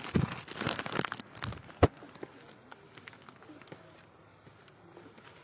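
Rustling and crackling from a handheld phone's microphone being rubbed and handled for about two seconds, with one sharp knock near the two-second mark. After that come faint, scattered taps of footsteps on concrete steps.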